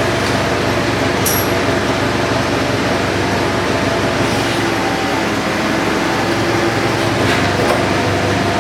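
A machine running steadily: a constant drone with several steady humming tones, and a brief high click about a second in.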